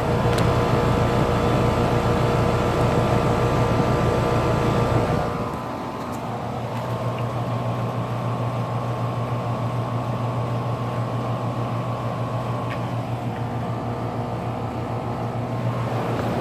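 Rheem Classic air conditioner condensing units running, with a steady compressor hum and fan whir. About five and a half seconds in the sound changes, quieter and with a different set of tones, as another unit comes to the fore.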